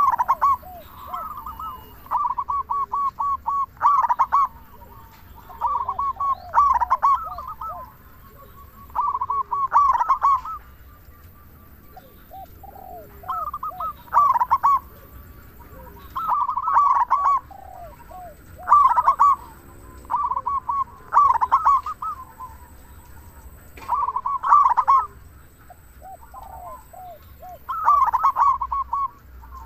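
Male zebra dove (perkutut) cooing in loud, repeated phrases, each a quick run of notes, coming about every two to three seconds.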